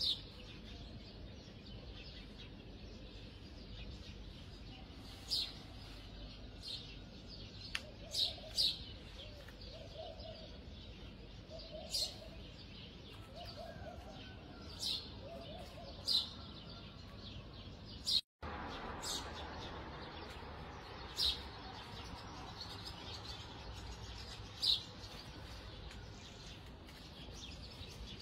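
Small birds chirping: short, sharp, high chirps every one to three seconds, irregularly spaced, over a low steady hiss. The sound cuts out for a moment about two-thirds of the way through.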